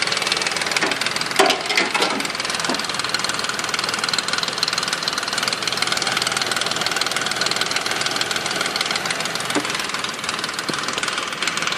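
2005 Nissan Quest's 3.5-litre V6 idling steadily with a rattle from the front of the engine, and a louder brief clatter about a second and a half in.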